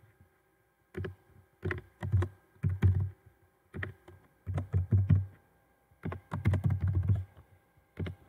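Typing on a computer keyboard: short runs of keystrokes in about eight bursts, a word at a time, with pauses between them.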